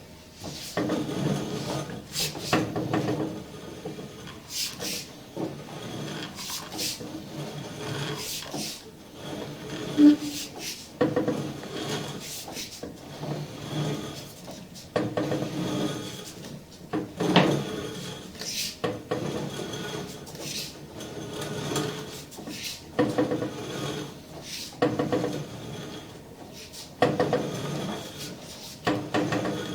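Sewer inspection camera being pushed along a drain pipe: irregular scraping and knocking as the camera head and push rod rub and bump through the line, in uneven strokes every second or two.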